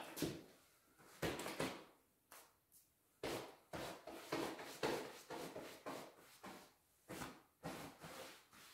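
A string of short, irregular knocks and scuffs from a person shifting about, getting up and bending over on a workshop floor.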